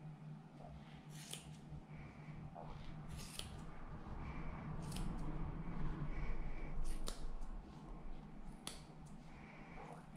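Westcott titanium 5-inch scissors snipping through angora rabbit wool, a crisp snip every second or two, clipping out mats.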